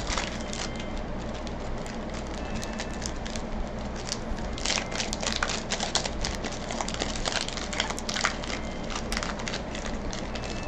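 Foil trading-card booster pack being torn and crinkled open, a string of irregular crackles as the stubborn wrapper resists. A steady air-conditioner and fan hum runs underneath.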